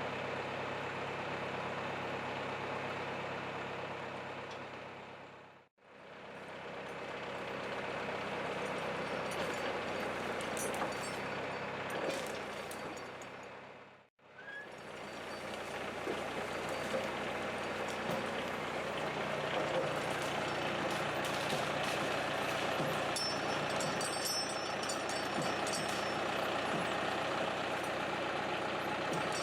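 Farm tractor's diesel engine running steadily under load while working logs, in three stretches split by two abrupt cuts to silence.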